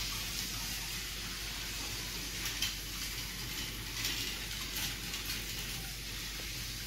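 Rail King battery toy locomotive, running on a single 3.7-volt battery, pulling two wagons around plastic track: a steady hissing whir from its small motor and wheels, with a few light clicks.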